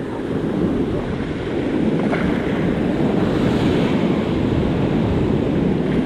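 Ocean surf breaking and washing up the beach in the shallows, a steady rushing that swells over the first two seconds.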